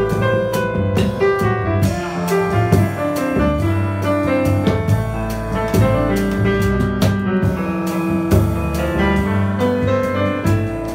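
Jazz trio playing: piano over plucked upright bass, with frequent strokes from the drum kit.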